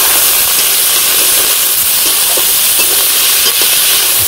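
Cut potatoes and drumsticks (moringa pods) frying in hot oil with fried onions in a metal wok: a loud, steady sizzle.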